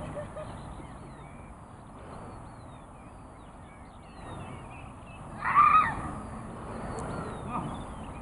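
Small birds chirping in the background, with one loud honking call a little past halfway.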